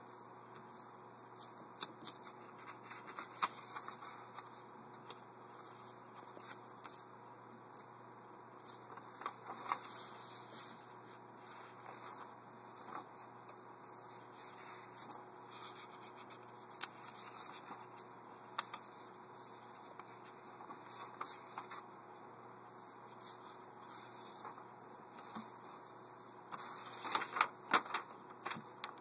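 A sheet of paper being handled, folded and creased by hand on a tabletop: scattered rustles, crinkles and light taps, busiest near the end, over a steady hiss.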